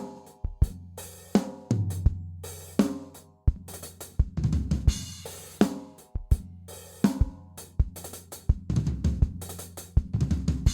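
Drum kit played: a gospel-style chop pattern spread across hi-hat and floor tom, with bass drum, snare and cymbal hits and the toms ringing between strokes.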